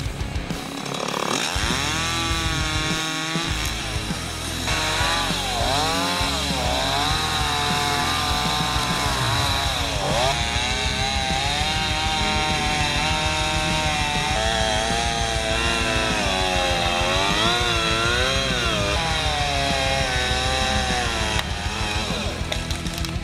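Two-stroke chainsaw running and cutting into a tree, its engine pitch rising and falling again and again as the throttle and the load of the cut change.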